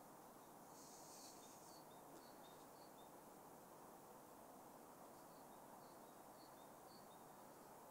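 Near silence: faint outdoor background hiss with a small bird's short, high chirps in two runs, one about a second in and another around five to seven seconds in.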